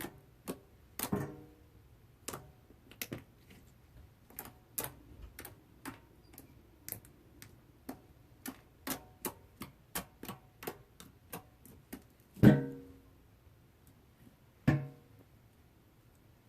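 Fluffy slime crackling and popping air bubbles: irregular sharp crackles, about two or three a second, with a few louder pops that ring briefly. The loudest pop comes about twelve seconds in.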